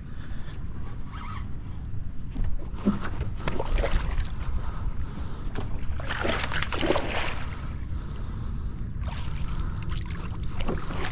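Hooked largemouth bass splashing at the surface beside a boat, a longer burst around the middle and another near the end, over a steady low rumble.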